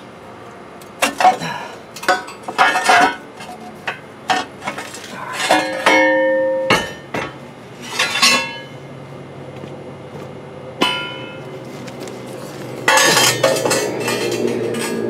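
Steel axle truss being knocked and worked off a tight fit on a rear axle housing: a string of sharp metal clanks and knocks, one ringing briefly, then metal scraping near the end as the plate comes away.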